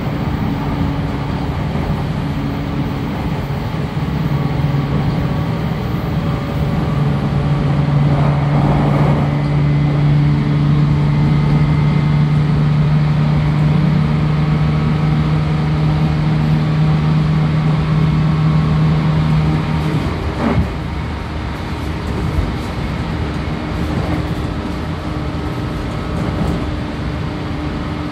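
Running noise inside a JR Kyushu 813 series 200-subseries electric train's motor car at speed: wheels rumbling on the rails under a steady hum from the traction motors. The hum swells a few seconds in, holds, and cuts out about twenty seconds in, when power is shut off and the train coasts on, with a single knock.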